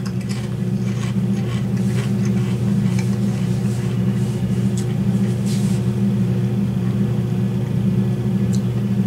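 Steady low background hum, with faint scattered crunches of potato chips being chewed.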